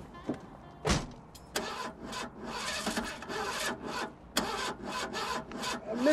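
Footsteps on a paved street, sharp irregular steps about every half second to second, with a short voice-like call near the end.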